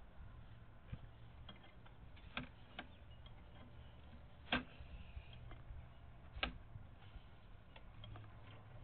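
Irregular sharp clicks and ticks from a sewer scope's push cable and camera head as it is fed along a PVC sewer line, the loudest about halfway through, over a low steady hum.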